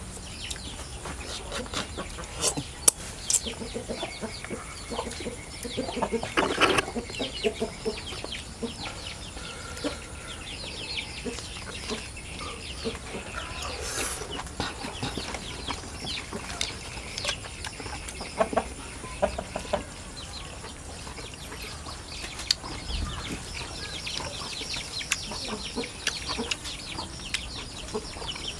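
Chickens clucking, with many short high cheeps throughout and a louder call about six seconds in.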